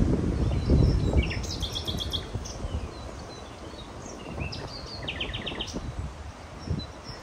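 Small birds chirping, with two short, fast trills of repeated notes. Under them is a low rumbling noise, loudest in the first two seconds, which then eases off.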